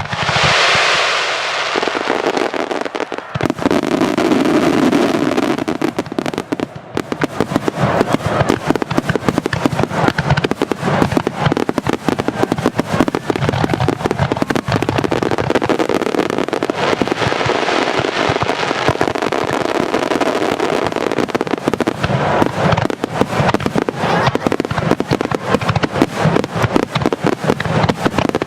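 Aerial fireworks display opening barrage: a noisy rush in the first few seconds, then dense rapid-fire bangs and crackles with no break from about seven seconds in.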